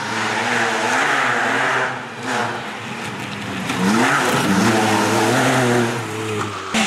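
Off-road rally car engine being driven hard on a dirt track, the revs rising and falling, with a quick climb in pitch about four seconds in, over a hiss of tyres and loose dirt. A sharp crack comes near the end.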